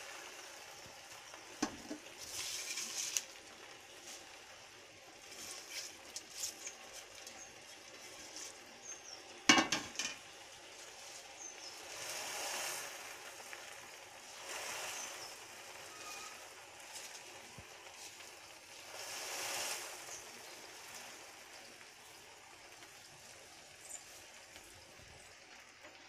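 Fresh gongura (sorrel) leaves in a hot aluminium pot, rustling as a hand presses them down and giving a soft sizzle that swells and fades every few seconds. A few sharp knocks of hand or utensil on the pot, the loudest about nine and a half seconds in.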